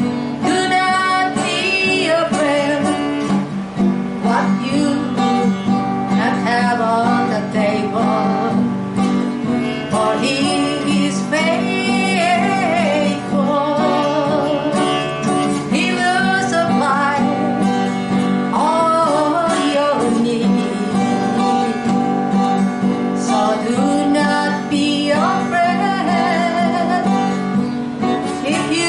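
A woman singing a worship song to her own acoustic guitar accompaniment.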